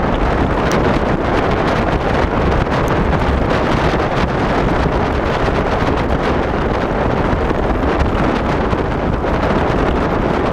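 Steady wind buffeting the microphone, with scattered faint ticks and rattles.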